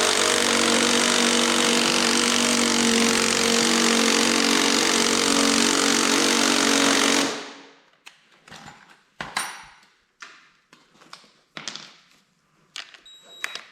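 Impact wrench hammering steadily on a stuck bolt without freeing it, stopping abruptly about seven seconds in; then scattered clicks and knocks of tools being handled.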